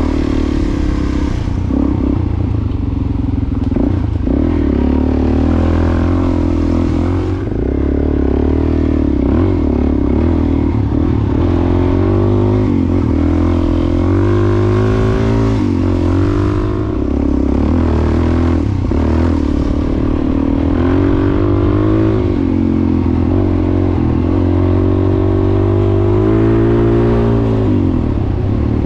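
Single-cylinder dual-sport motorcycle engine heard from the rider's seat on a dirt track, its pitch rising and falling again and again as the throttle opens and closes. A steady rushing noise of wind and tyres runs beneath.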